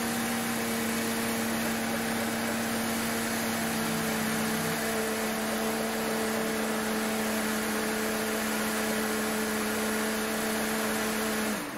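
Mercedes C180 Kompressor's supercharged four-cylinder engine idling steadily with a steady whine, running on a newly fitted serpentine belt. Near the end it is switched off, the whine sliding down in pitch as it stops.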